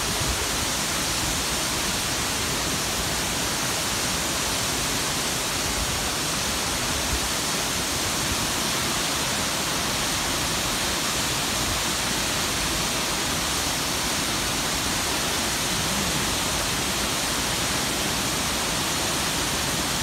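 Wachirathan Waterfall in heavy flow, pouring down a tall rock face: a steady, unbroken rush of falling water.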